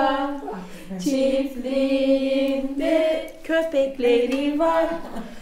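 A woman singing a slow melody in long held notes that step from one pitch to the next, with no clear accompaniment.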